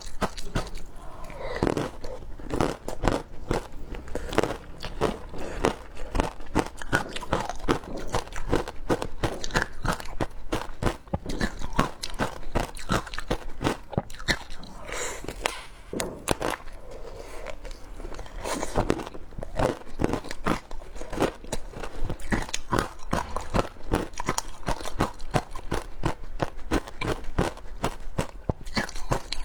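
Close-up crunching and chewing of frozen passion fruit ice: a dense, continuous run of sharp bites and crackles.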